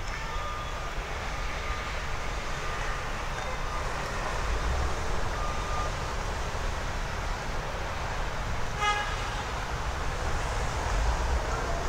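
Street traffic: a steady rumble of passing motor vehicles, swelling twice, with a brief high-pitched horn toot about nine seconds in.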